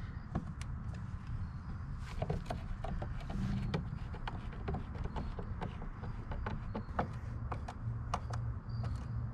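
Hand screwdriver snugging down 10-32 machine screws through a kayak motor-mount plate, giving scattered small clicks and ticks of the screws, driver and plate, over a steady low rumble.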